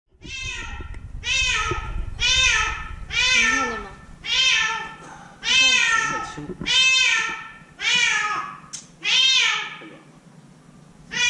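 A cat trapped at the bottom of a deep light well meowing over and over, about one call a second, each call rising and then falling in pitch.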